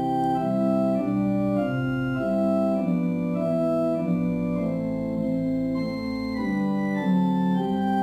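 Organ music: slow, held chords with a melody that moves from note to note every half second or so.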